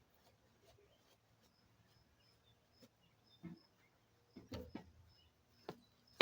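Quiet background with faint, short high chirps scattered throughout, and a few soft knocks in the second half.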